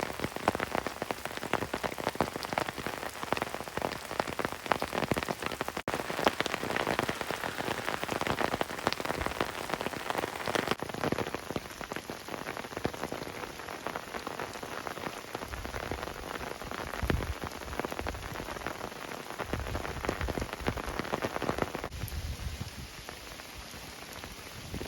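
Steady rain falling, with many individual drops ticking close by. Some dull low thumps come in during the second half.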